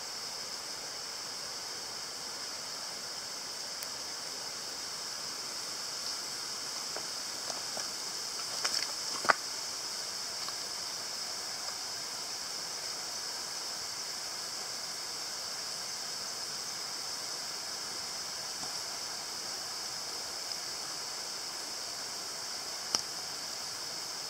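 Steady, high-pitched hiss of outdoor night ambience, with a sharp click about nine seconds in and another near the end.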